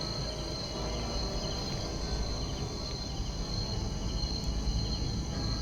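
Night insect chorus: crickets trilling steadily on a high note, with faint repeated chirps, over a low background rumble.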